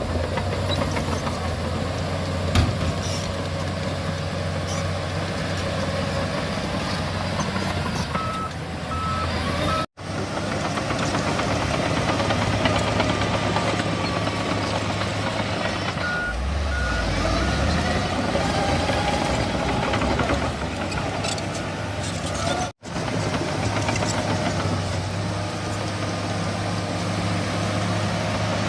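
Komatsu bulldozer's diesel engine running steadily under load, with a reversing alarm beeping in short runs twice and one sharp knock a few seconds in. The sound drops out for an instant twice at edit cuts.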